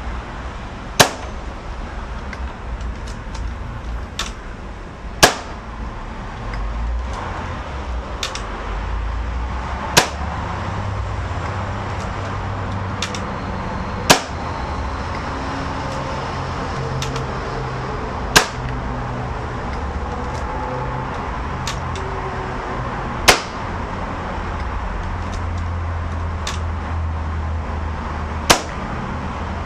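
Hatsan AT44 PCP air rifle firing seven shots over a chronograph, one every four to five seconds, each a single sharp crack. Fainter clicks come between the shots.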